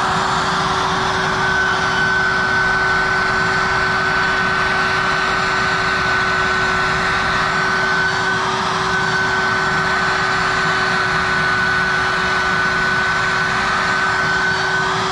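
Router running steadily with an even whine, its bit surfacing a walnut slab with an epoxy inlay as it is flattened on a rail sled.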